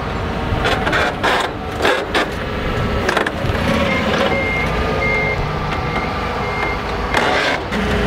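Toyota forklift running as it sets a pallet down on a steel utility trailer, with metallic clanks in the first half. About halfway through its reversing beeper starts, giving a series of short high beeps as it backs away.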